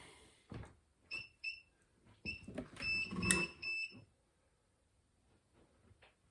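Xterra treadmill console beeping: a string of short high electronic beeps between about one and four seconds in, with a few soft knocks among them.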